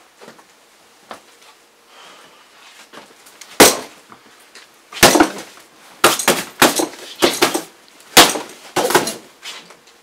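Boxing gloves punching a UFC heavy bag: one hit about three and a half seconds in, a quick pair a second later, then a rapid flurry of thumps through the last four seconds.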